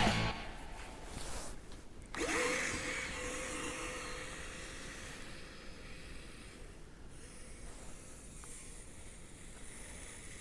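Brushless electric motor of a Kyosho Blizzard radio-controlled tracked snow cat running with a steady whine, starting about two seconds in, over a hiss.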